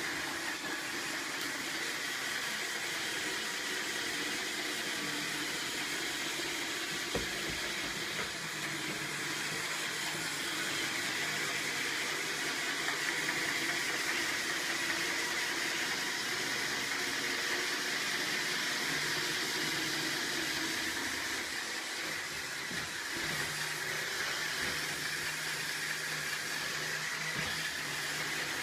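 Roomba robot vacuum running: a steady whirring hum with a hiss, plus a single light knock about seven seconds in.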